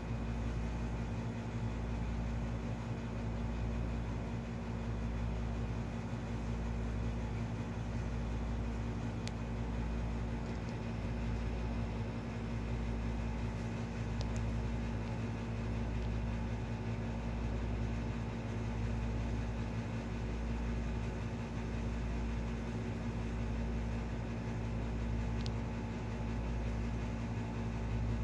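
Steady low machine hum with a slow, regular throb, and a few faint ticks.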